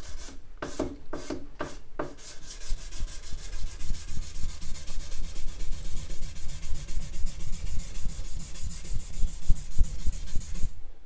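800-grit sandpaper rubbed by hand along a knife's spine. There are a few separate strokes at first, then quick, steady back-and-forth scraping. This is hand-finishing to even out and smooth the spine after belt grinding.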